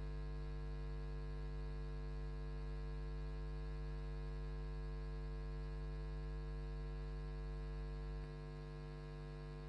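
Steady electrical mains hum on the audio feed: a low hum with a buzz of many overtones above it. Its lowest part drops slightly in level about eight seconds in.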